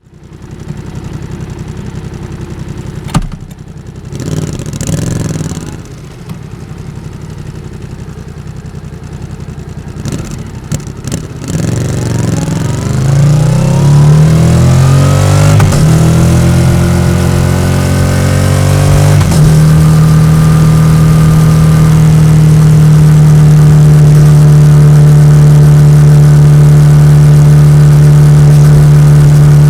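Yamaha XSR700's parallel-twin engine through an SC-Project aftermarket exhaust. It runs low at first, with a sharp click about three seconds in and a brief blip of the throttle. Then it gets louder and rises in pitch twice, with a break near the middle, like pulling away through the gears, and from about two-thirds of the way through it holds a steady, loud note.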